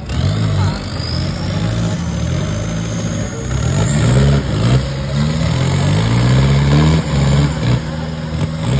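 Off-road 4x4 truck's engine revving in repeated surges, its pitch rising and falling several times.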